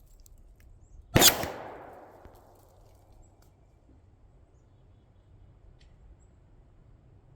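A single gunshot about a second in, its report echoing away over about a second.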